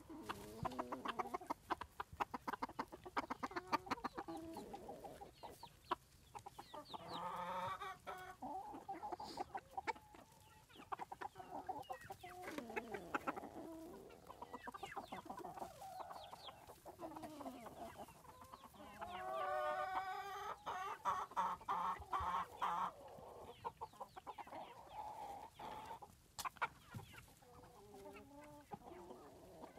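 A flock of chickens, silkies among them, clucking throughout, with louder drawn-out squawks about seven seconds in and again around twenty seconds in.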